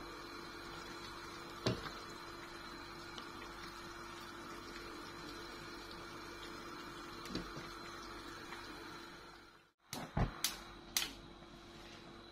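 Soup simmering in a wok on a gas burner while a ladle scoops and pours broth into a bowl, with a steady hum and the ladle knocking the pan now and then. Near the end, a few sharp clicks.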